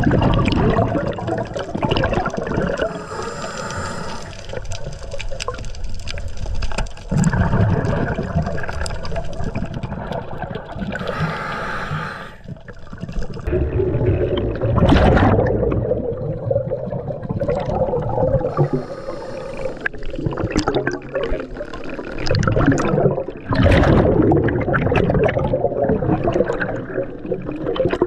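Water sloshing and bubbling heard underwater by the camera, swelling and easing in surges as the diver swims along the seabed and up toward the surface.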